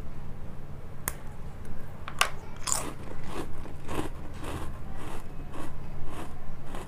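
A crisp Britannia 50-50 jeera biscuit snapping as it is bitten, then crunchy chewing at about two crunches a second.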